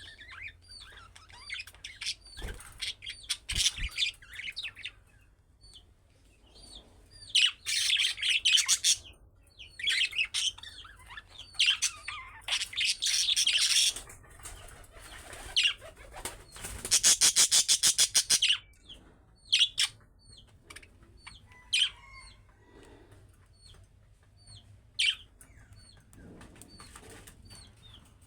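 A group of budgerigars chirping and chattering in short high calls, with louder bursts of busy warbling in the middle and a run of rapid, evenly spaced pulses shortly after.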